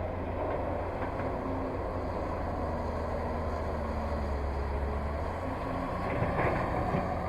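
Excavator's diesel engine running steadily with a low hum, with a brief louder stretch of noise about six seconds in.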